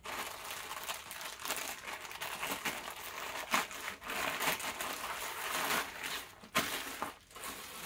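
Thin plastic packaging crinkling and rustling with many sharp crackles as an item is pulled out of a shipping bag and handled.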